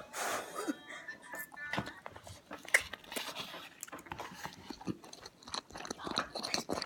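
Close-miked ASMR trigger sounds: irregular crunchy clicks and crackles, with a short hissy burst at the start.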